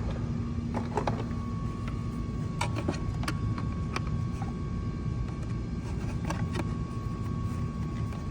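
Scattered light clicks and taps of a small screwdriver and plastic mirror-housing parts being worked, over a steady low hum with a faint steady tone.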